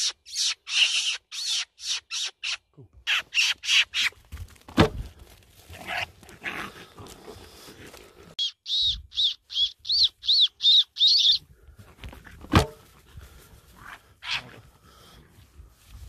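Shrill distress squeals in quick series, about four a second, in three bouts; in the last bout each squeal rises and falls in pitch. Two sharp knocks fall between the bouts, the second one loud.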